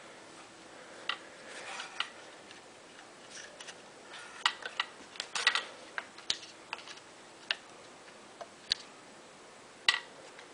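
Scattered light clicks and taps, about a dozen at irregular intervals, from handling a metal airsoft M4 rifle and its parts.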